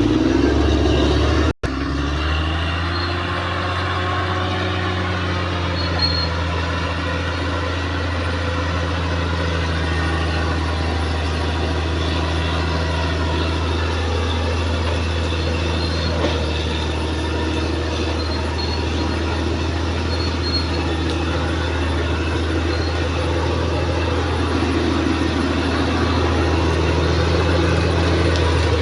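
Caterpillar D6R XL bulldozer's diesel engine running at a steady speed, a constant low drone.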